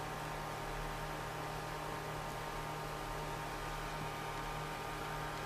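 Steady electrical mains hum with a stack of buzzy overtones over a background hiss.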